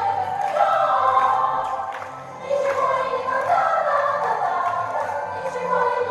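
Choir singing a song over an accompaniment with sustained bass notes.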